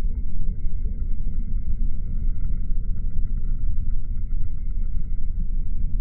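A steady low rumble that wavers in loudness, with no bird call standing out.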